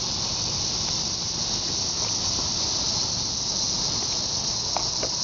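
Steady high-pitched chorus of summer insects, an even shrill drone with no break, and a faint tick near the end.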